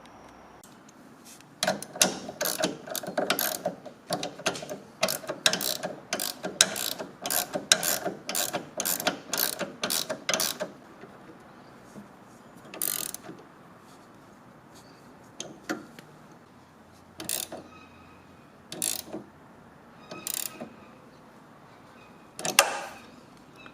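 A ratchet mechanism clicking: a run of quick strokes, about three clicks a second, for some nine seconds, then a handful of single clicks a second or two apart.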